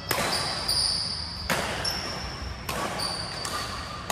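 Badminton rackets striking the shuttlecock in a doubles rally, about one sharp hit every second or so, echoing in a large sports hall, with short high squeaks of shoes on the court floor between shots.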